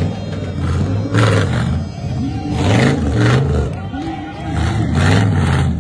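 Off-road buggy engine revving hard under load on a steep dirt climb, its pitch rising and falling in repeated surges.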